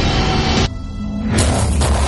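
Background music. About two thirds of a second in, everything but the low bass drops out. A little past halfway, a full, noisy electronic section cuts back in.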